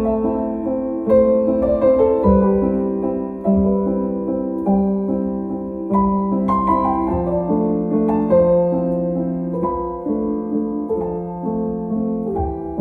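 Background piano music: slow chords and notes struck about once a second, each held and decaying.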